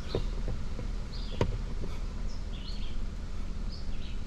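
Steady low engine rumble, with short high bird chirps over it and a sharp click about a second and a half in.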